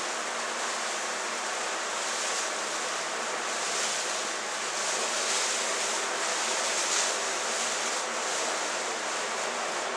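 Large electric fan running on its highest setting, a steady rush of air blowing into a trash-bag hot air balloon to inflate it, swelling a little in the middle.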